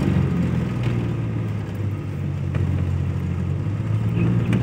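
Car engine running steadily while the car is driven, heard from inside the cabin.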